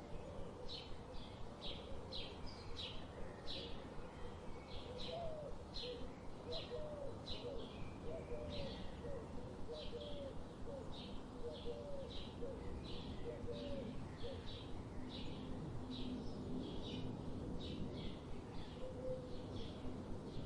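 Birds chirping: short high chirps repeated about two to three times a second throughout, with a run of lower, hooked calls in the middle, over a steady outdoor background hiss.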